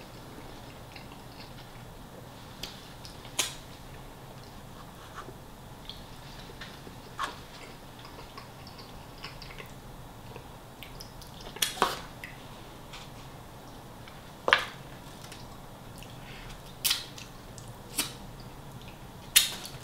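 Close-up eating sounds: a person chewing, with wet mouth smacks and finger licking heard as about ten sharp clicks scattered through, the loudest a close pair in the middle.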